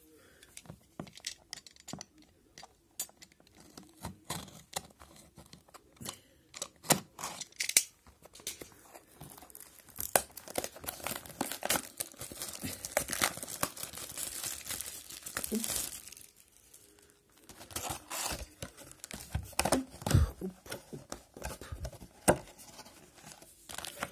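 Cellophane shrink-wrap being torn and crinkled off a sealed hobby box of hockey cards, with scattered clicks and taps of handling; the crackling is densest about halfway through.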